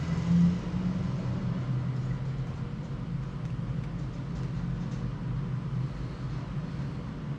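A steady low hum, with faint scratching of a ballpoint pen writing on lined paper.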